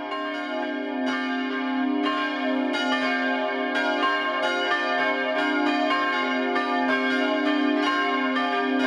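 Church bells ringing, several bells struck in turn about once a second, each stroke overlapping the ringing of the ones before.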